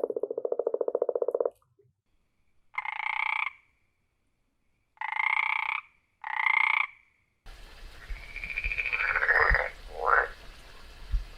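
Frogs calling in several edited-together recordings. First comes a fast pulsed trill that stops about a second and a half in. After a pause, three short buzzy croaks follow, then a noisier recording with a few more calls near the end.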